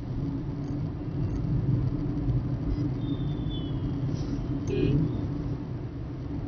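Steady low rumble of a car driving at highway speed, engine and tyre noise, heard from inside the cabin.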